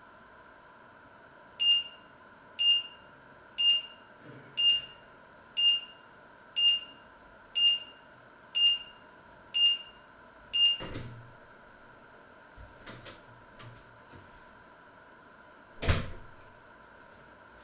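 Kitchen appliance alarm beeping ten times, about one high electronic beep a second, then stopping. A dull thump follows, a few faint clicks, and a sharp knock near the end.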